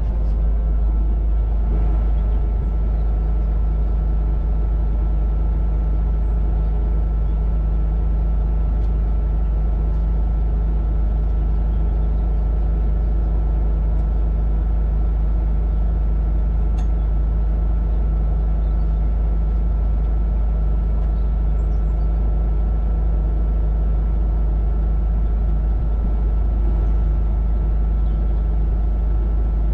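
Kubota KX61-2 mini excavator's diesel engine running steadily at a constant speed, with a low, even hum.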